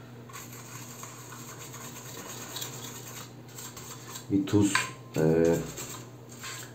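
Metal hand tools clinking and rattling against each other on a workbench as they are handled, over a low steady hum.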